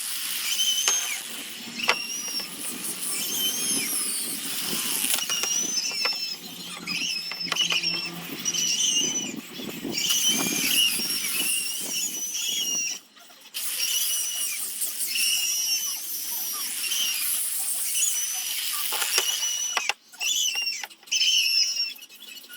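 Small power tool sanding the wooden basket, with a high squealing whine that wavers in pitch as it bears on the wood. It stops briefly about halfway through and again twice near the end.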